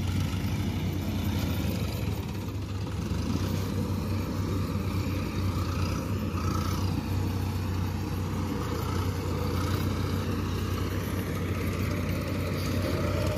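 Tractor diesel engine running steadily as it pulls a rotavator through a flooded rice paddy, a constant low hum.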